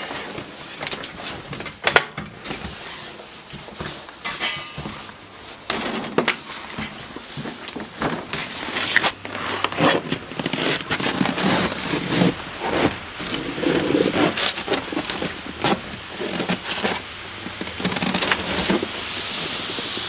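Rustling of a heavy coat and handling noise on the phone's microphone, with scattered clicks and knocks as someone steps out through a door carrying a pot of just-boiled water. Near the end comes a steady rushing hiss as the boiling water is flung into −41° air and flashes into a cloud of vapour and ice.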